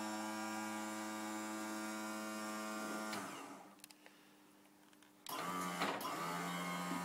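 Electric hydraulic pump motor of a wheelchair tail lift running with a steady hum as the long platform is raised and folded. It winds down and stops about three seconds in, a few faint clicks follow, and about two seconds later it starts again at a higher pitch.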